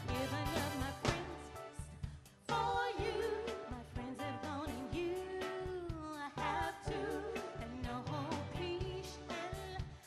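A woman sings a soul-pop song live with vibrato, backed by a band with drums, electric guitar and keyboards on a steady beat. The music drops away briefly about two seconds in.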